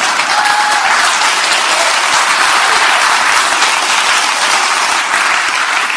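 Audience applauding steadily, easing off near the end.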